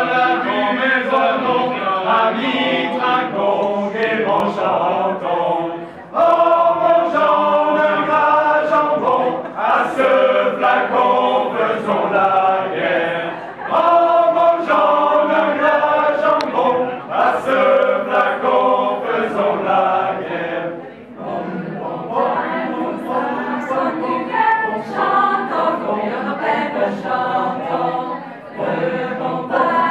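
A mixed group of men and women singing together unaccompanied, in long phrases of about seven seconds with brief breaks between them.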